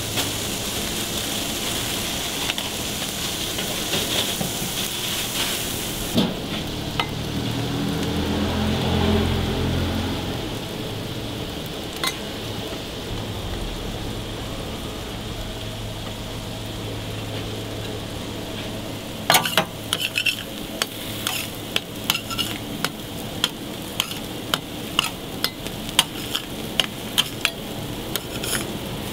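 Burger patties sizzling on a flat-top steel griddle. A low rumble swells and fades about a third of the way in, and in the last third a metal spatula clicks and scrapes against the griddle in many quick, sharp taps.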